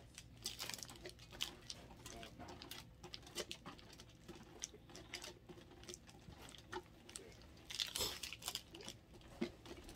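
A bar of soap being grated on a stainless-steel box grater: a run of short scraping strokes, with a louder burst of strokes near the end.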